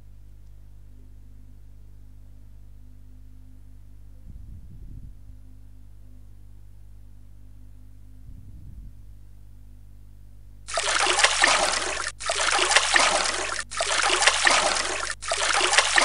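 Water sound effect of splashing and trickling water. It starts abruptly about ten and a half seconds in and comes in surges about every second and a half, with brief dips between them. Before that there is only a faint low hum.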